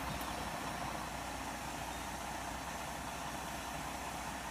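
Steady running noise of a fire tanker idling while hydrant water rushes through a 5-inch hose into its tank, which is at or near full.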